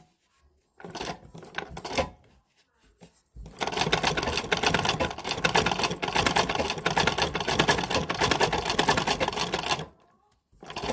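Old manual sewing machine stitching: a short stop-start run, then about six seconds of steady, rapid needle-stroke clatter that stops shortly before a brief final burst.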